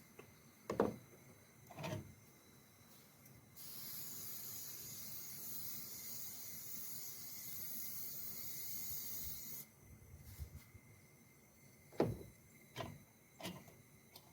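A steady hiss lasting about six seconds, starting and stopping abruptly, between scattered knocks of cooking gear being handled.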